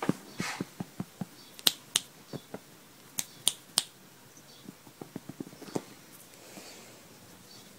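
A person snapping their fingers, five sharp snaps in two quick groups, among softer small clicks and taps.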